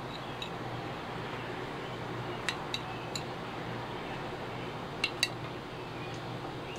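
A metal spoon clinking against a glass jar while scooping giardiniera out of it: three light clinks about two and a half seconds in, then two more about five seconds in, over a steady low hum.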